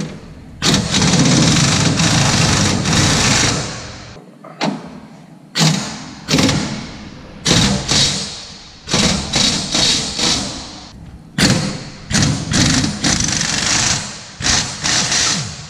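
Pneumatic air hammer with a chisel bit rattling in repeated bursts, working the catwalk loose from the frame. The first burst lasts about three seconds, then come many shorter ones with short pauses between.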